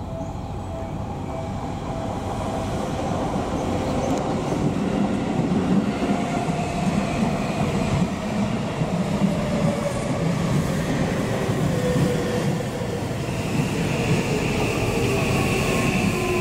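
Electric commuter train running past on the track: a steady rumble of wheels on rails that swells over the first few seconds, with motor whines gliding slowly down in pitch. A thin, steady high whine joins near the end.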